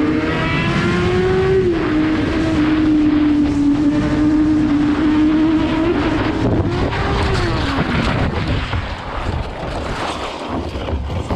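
Sport bike engine held at high revs at speed, with wind rushing past, its note dipping briefly near two seconds in. After about six seconds the engine note swells and falls away, and a run of knocking and scraping takes over as the bike goes down in a crash.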